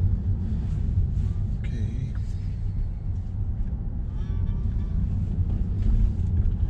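Road and tyre noise heard inside the cabin of a Tesla electric car driving on a city street: a steady low rumble with no engine note.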